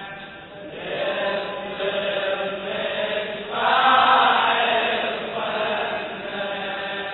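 Voices chanting a Shia latmiya, a religious lament, in long held phrases that swell loudest about halfway through.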